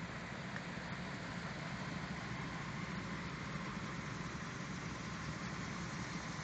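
1996 Dodge Ram 1500 pickup engine idling steadily at operating temperature, on a newly installed 180°F thermostat and new radiator.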